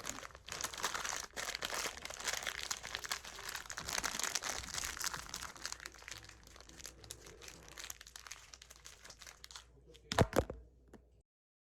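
Crinkling and crackling of plastic packaging being handled for most of the stretch, with a short louder burst near the end.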